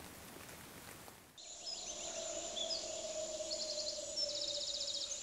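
Soft even hiss, like light rain, for about the first second and a half. Then evening outdoor ambience: birds chirping and giving two quick trills, over a thin steady high-pitched tone and a faint steady lower tone.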